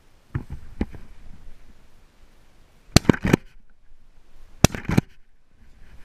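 Shotgun blasts in two quick volleys about a second and a half apart, each volley of about three shots in rapid succession. Two fainter knocks come near the start.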